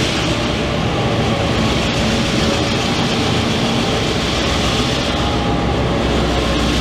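Diesel locomotives of a ballast works train, including a T-class, running in a steady drone as the loaded wagons roll slowly past.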